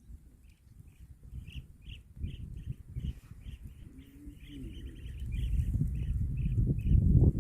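A small bird chirping over and over, about two to three short chirps a second, over a low rumbling noise that grows louder in the last couple of seconds.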